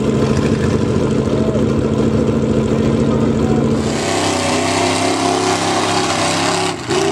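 Pickup truck engine held at steady high revs during a burnout. From about four seconds in, a truck engine revs hard as it churns through a mud pit, with mud and water splashing.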